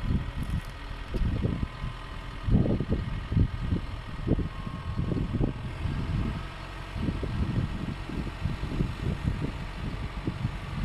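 Farm tractor engine running steadily as the tractor drives slowly, partly covered by irregular low gusts of wind buffeting the microphone.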